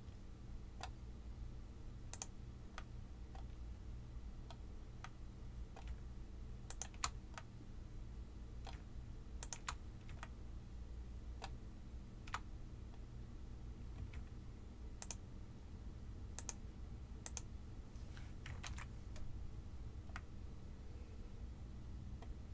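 Faint, irregular clicks of a computer keyboard and mouse, a couple of dozen scattered sharp taps, some in quick pairs, over a low steady hum.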